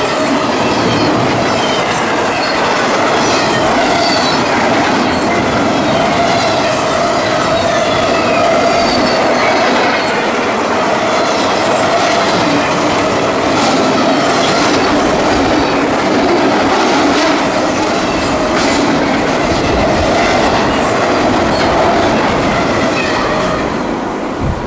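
Double-stack container freight cars rolling past, their wheels clacking over the rail joints with a steady squeal. The last car passes near the end and the sound falls away.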